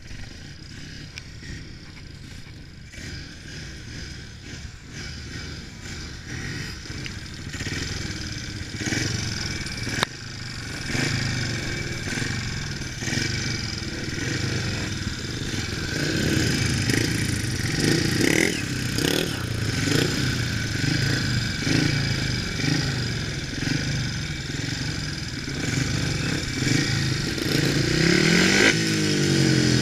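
Speedway bike's 500cc single-cylinder methanol engine running hard on the track, its revs repeatedly rising and falling and the sound getting louder over the first half, heard from a handlebar-mounted camera.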